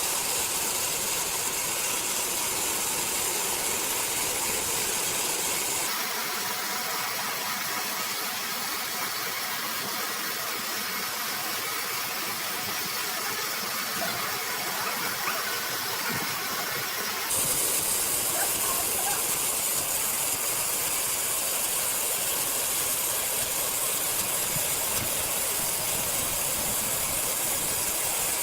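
Steady mechanical noise of sawmill machinery running, a continuous high hiss with a low engine-like undertone. The sound shifts abruptly about six seconds in and again about eleven seconds later.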